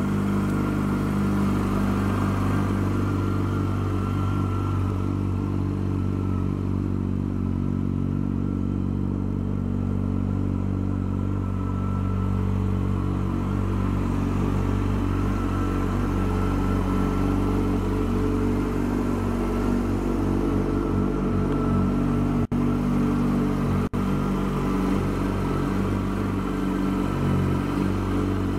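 2007 Yamaha FZ1S's inline-four engine idling steadily through an Akrapovič slip-on exhaust. The sound drops out for an instant twice near the end.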